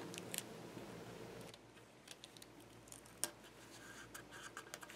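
Faint clicks and rustles of clear Scotch tape being handled and pressed down by fingers onto a wooden scroll-saw workpiece, with one sharper tick about three seconds in.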